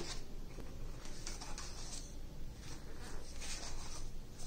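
Pages of a paperback picture book being turned and handled, a series of soft paper rustles and brushes.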